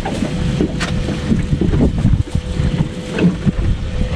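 Wind buffeting the microphone on a boat on open water, an uneven low rumble with scattered small knocks and a thin steady hum.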